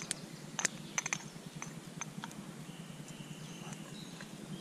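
Scattered light clicks and taps of a utensil against a pan as coconut fat is put in for frying.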